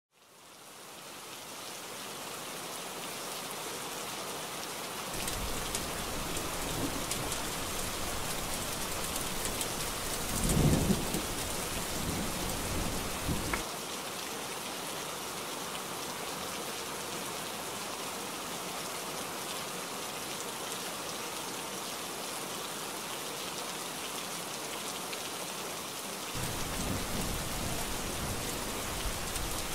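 Heavy rain falling in a steady hiss, fading in at the start. Thunder rumbles in about five seconds in, with a loud clap around ten seconds that dies away a few seconds later, and another low rumble of thunder begins near the end.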